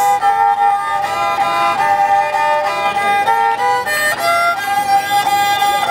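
Nepali sarangi, a folk fiddle carved from a single piece of wood, bowed in a tune of stepping notes over a steady held drone note.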